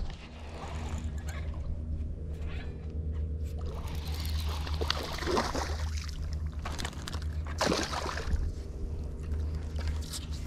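A hooked largemouth bass thrashing and splashing at the water's surface, with splashes about five seconds in and again near eight seconds, over a steady low hum.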